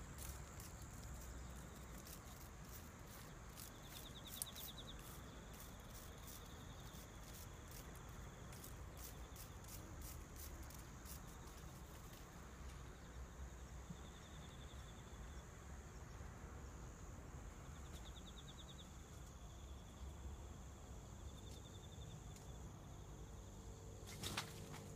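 Faint outdoor ambience: a steady high insect buzz with short pulsed insect trills every few seconds, over a low background rumble, with scattered light clicks in the first half. Near the end, a brief clatter as a kitten leaps about in a plastic planter box.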